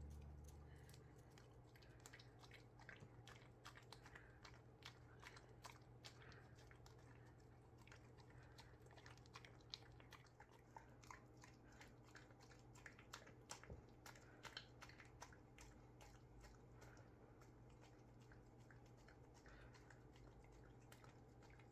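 A husky licking and smacking at whipped cream in a paper cup: faint, irregular wet mouth clicks, over a low steady hum.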